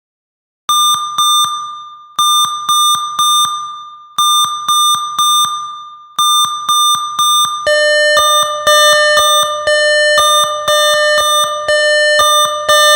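Emergency-alert-style electronic alarm tones. Groups of three quick high beeps repeat about every two seconds, each group ringing away. About eight seconds in, a faster, denser run of beeps on a lower and a higher pitch takes over.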